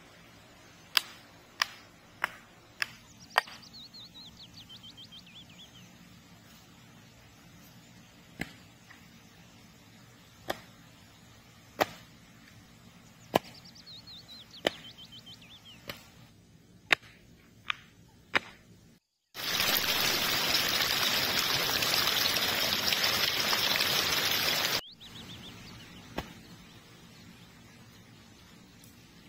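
Sharp knocks of a hatchet striking wood, at irregular intervals, with a bird singing a short descending trill twice. About two-thirds of the way through, a loud steady rushing noise starts suddenly, runs about five seconds and cuts off abruptly.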